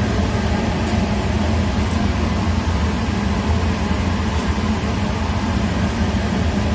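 Steady low hum and hiss of a running machine, unchanging throughout.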